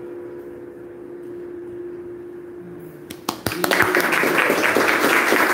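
The dance music ends on a steady held note. Just after three seconds a few first claps sound, and the audience breaks into loud applause.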